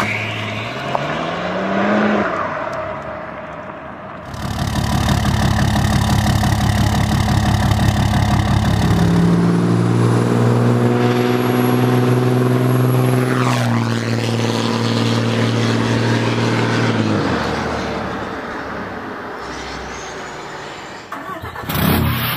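Diesel engines in a run of clips: about four seconds of a BMW 3-series coupe's engine revving up, then a Ram heavy-duty diesel pickup under load as it accelerates, its engine pitch stepping up about halfway through, holding, then falling away near the end.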